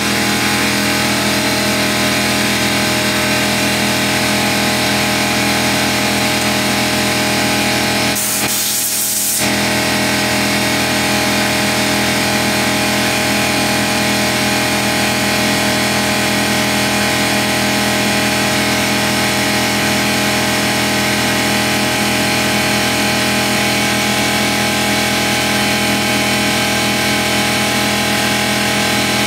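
Porter-Cable 6-gallon 150 psi pancake air compressor running steadily, its pump building tank pressure back up toward cut-out. A short hiss of air comes about eight seconds in.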